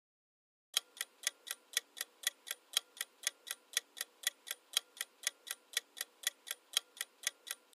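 Countdown-timer clock-tick sound effect: sharp, even ticks about four a second, starting about a second in, marking the seconds left to guess.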